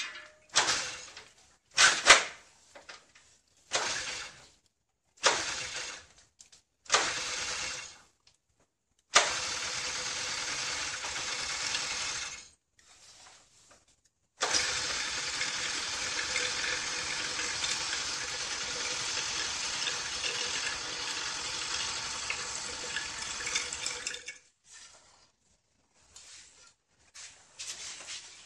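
Honda Cub's single-cylinder four-stroke engine being kick-started for its first start after an internal teardown and inspection. There are about six short kicks, each a sudden burst. The engine then catches and runs for about three seconds, stops, catches again and runs steadily for about ten seconds before stopping, followed by a few light knocks.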